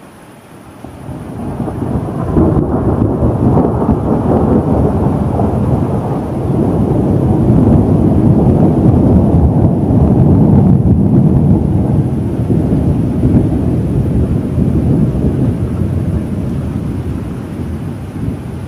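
A long roll of thunder: a deep rumble that swells in about a second in, rolls on strongly through the middle and slowly fades toward the end.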